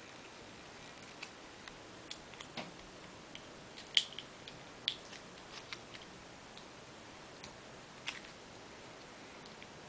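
Scattered small plastic clicks and taps as a Beyblade part is worked out of its plastic packaging, irregular rather than steady, with the sharpest click about four seconds in.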